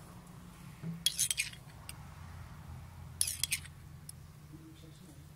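Metal spoon clinking against a drinking glass while scooping vegetable oil, in two short clusters of clinks about two seconds apart, over a low steady hum.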